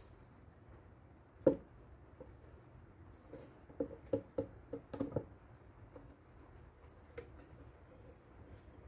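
Hands handling objects on a workbench: one sharp knock about a second and a half in, then a quick run of about seven lighter knocks and taps a couple of seconds later.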